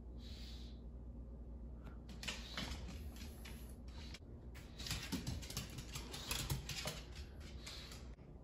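A pug's claws clicking and pattering on a hard wood-look floor as it walks and trots about, in quick irregular taps from about two seconds in. A short breathy hiss comes about half a second in.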